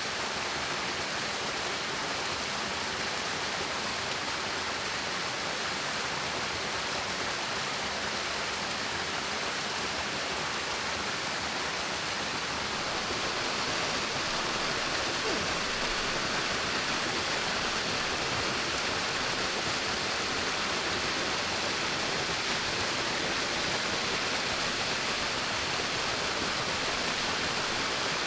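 Steady rushing of running water, a little louder from about halfway through.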